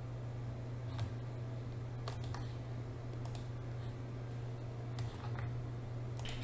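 A few faint, scattered clicks of a computer mouse and keyboard over a steady low hum.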